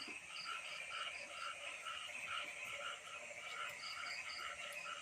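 A chorus of frogs calling: short croaks repeat evenly, about three or four a second, over a faint steady background of night animals.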